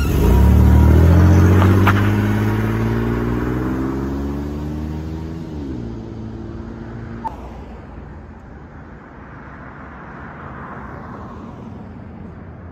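Chevrolet S-10 Blazer engine accelerating away from a standing start, its pitch rising steadily. About five and a half seconds in the pitch drops as the transmission shifts up, and the engine sound then fades with distance.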